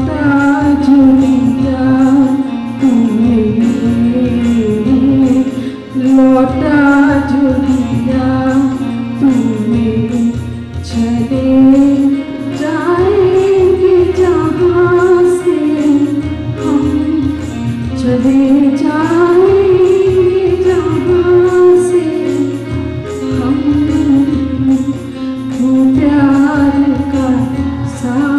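A Hindi prayer song sung by a woman and a group of children into microphones over instrumental accompaniment, the melody gliding between long held notes.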